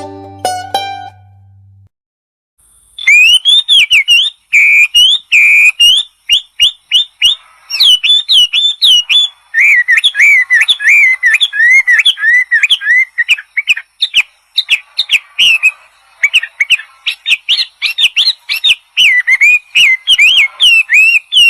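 A songbird singing a fast, continuous run of loud whistled notes that sweep up and down, starting about three seconds in, after the tail of a banjo-style music intro fades out.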